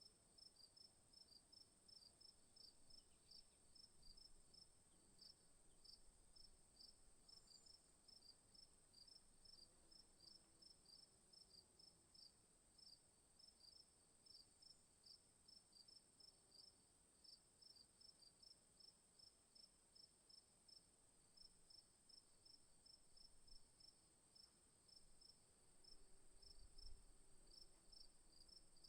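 Faint insects chirping: a steady high shrill buzz with rhythmic, high-pitched chirps about three a second.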